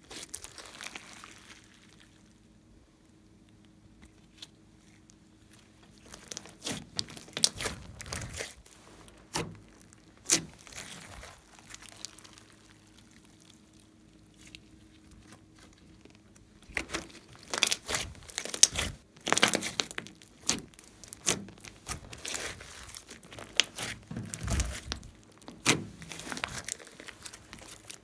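Hands squeezing, folding and stretching a large mixed slime, giving clusters of sharp crackling clicks and pops, with quieter spells in between.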